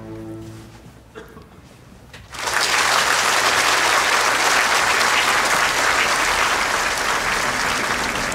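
Music fades away, then about two and a half seconds in an opera audience breaks into loud, steady applause.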